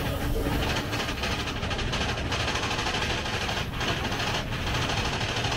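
Big Thunder Mountain mine-train roller coaster running along its track, heard from aboard the train: a steady rumble and rattle of the wheels on the rails.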